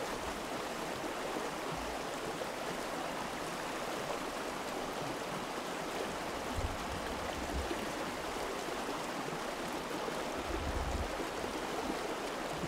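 Small mountain stream rushing over rocks and little cascades, a steady even rush of water. Two brief low rumbles come through, about halfway and near the end.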